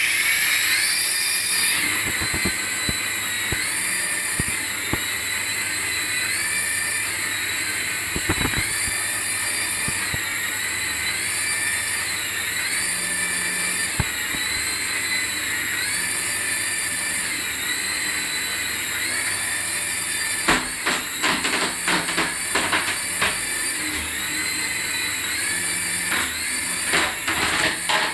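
High-pitched whine from an electric remote-control toy, its pitch stepping up and down about every two seconds. Irregular clicking and rattling join in about two-thirds of the way through.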